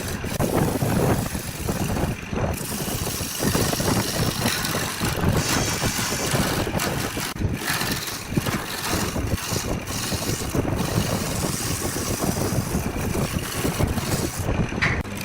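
Wood lathe running with a turning tool cutting into the spinning wood: a steady, rough scraping noise.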